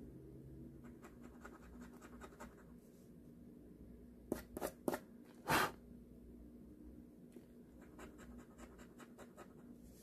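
Scratching the latex coating off a lottery scratch-off ticket in runs of short, quick strokes, with a few much louder scrapes about halfway through.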